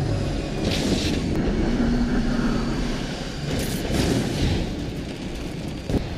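Sci-fi starship engine sound effect of a Kom'rk-class fighter transport in flight: a low rumble with two swelling whooshes as it passes, about a second in and about four seconds in, and a short sharp click near the end.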